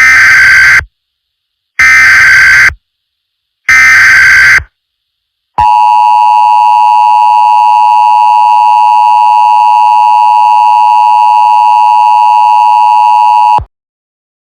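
Emergency Alert System alert opening: three one-second bursts of SAME digital header tones about a second apart, then the EAS two-tone attention signal, a steady loud tone held for about eight seconds that cuts off suddenly.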